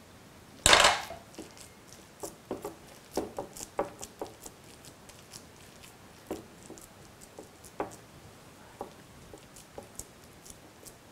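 Silicone spatula pressing and spreading a thick carrot burfi mixture on a ceramic plate: soft scrapes and small clicks against the plate. There is one loud knock a little under a second in.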